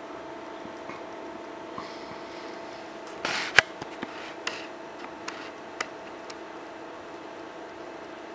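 Sony VPL-EX1 LCD projector's cooling fan running with a steady hum. Several sharp clicks and knocks come about three seconds in, the loudest first, spread over the next few seconds.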